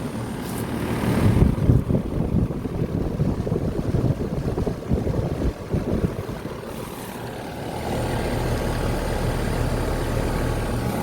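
Outdoor condensing unit of a new Rheem Endeavor 1.5-ton central air conditioner running, its condenser fan and Copeland compressor making a low hum. The sound is uneven and buffeting for the first several seconds, then settles into a steady hum about 8 seconds in.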